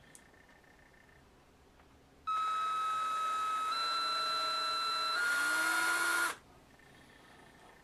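Small power drill running for about four seconds, boring a hole into a lock knob: a steady high motor whine that steps slightly up in pitch near the end, then stops suddenly.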